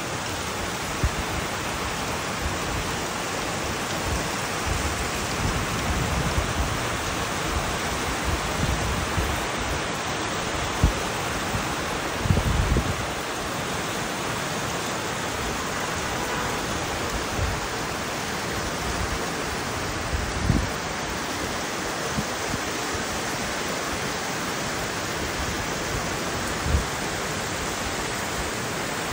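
Heavy rain pouring steadily onto trees and leafy shrubs, a dense even hiss. A few brief low thuds break through now and then.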